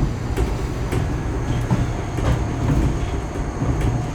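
Passenger train running, heard from inside the carriage: a steady low rumble with light rattling and clicks.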